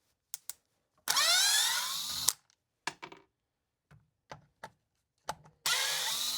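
Power drill run in two bursts of about a second each, its motor whine rising in pitch, turning the mounting screws of a chainsaw's recoil starter housing. Short clicks and taps of handling come between the bursts.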